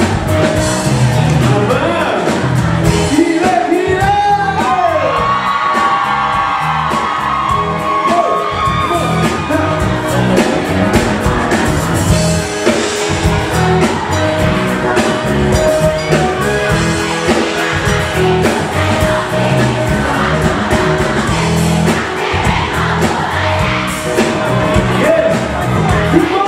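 A live band plays a pop song over a steady beat, with a lead vocal singing over it; held, gliding notes come about four seconds in and again near the end.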